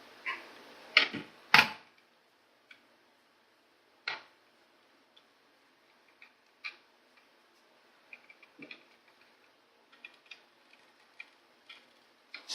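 Irregular light clicks and knocks of small die-cast toy model cars being handled: two sharper knocks about a second in, then scattered small clicks that come more often in the second half.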